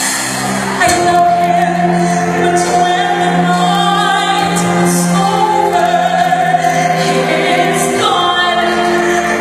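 A voice singing over musical accompaniment, holding long sustained notes.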